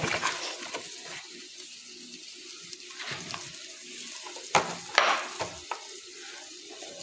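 Chilli flakes being handled from a plastic tub and sprinkled by hand into a glass bowl of dry spice powders: faint light scratching over a steady hiss, with two sharp clicks about half a second apart some four and a half seconds in.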